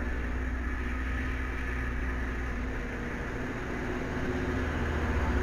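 Loram rail grinder train passing, its diesel engines running with a steady low rumble and hum. There are no grinding sparks in view, so the stones are not grinding the rail.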